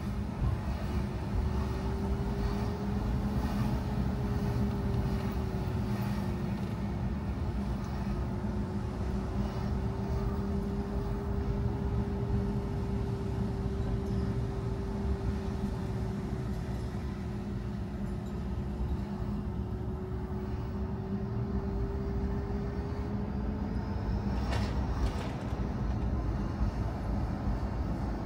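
A car driving: steady engine hum and road rumble, with a whine whose pitch drifts slowly and climbs near the end. A few sharp clicks come near the end.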